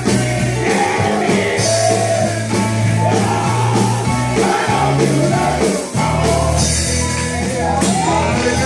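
Men's gospel choir singing with a keyboard and drum accompaniment over a deep, steady bass line, cymbals ringing throughout.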